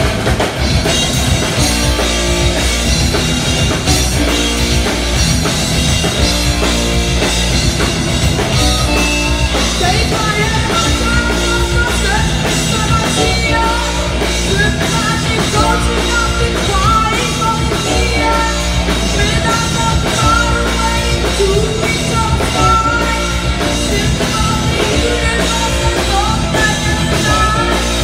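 Rock band playing live: electric guitars over a drum kit with a steady beat. About ten seconds in, a high lead line with bent notes comes in over the band.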